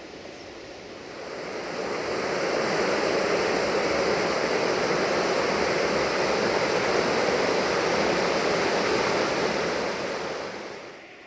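Rushing river rapids: a steady rush of white water that fades in over the first two seconds and fades out near the end.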